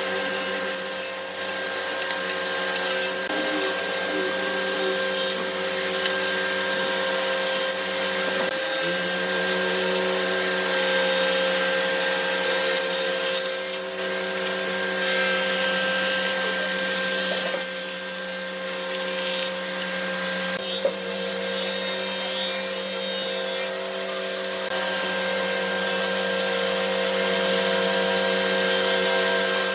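An electric woodworking power tool running steadily on wood, its motor whine holding one pitch, with a brief drop in pitch about nine seconds in as it bogs under load. A rough cutting hiss rises and falls over it.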